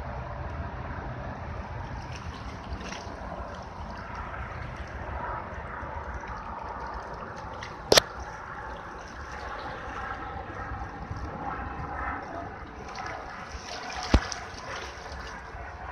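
Small river waves lapping and trickling against shoreline rocks, with two sharp clicks, one about eight seconds in and one near the end.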